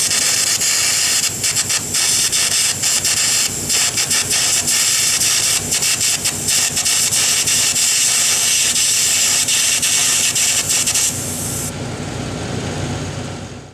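An electric arc on the steel pipe at a pipeline weld repair: a loud, steady, harsh hiss and crackle that breaks off briefly several times and stops about eleven seconds in. A quieter low rumble carries on after it.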